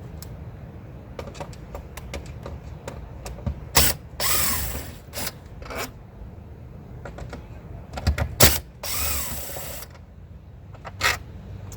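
Two Phillips screws being backed out of the Ford Explorer's plastic center console with a driver. There are two longer bursts of about a second each, a few seconds apart, one per screw, with scattered clicks of the tool and screws between them.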